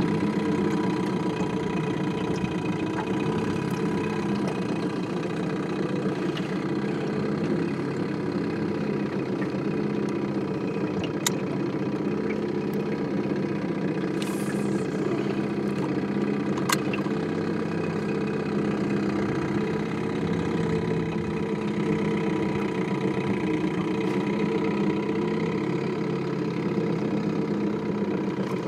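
Small outboard motor on an aluminium fishing boat running steadily, with a couple of sharp clicks in the middle.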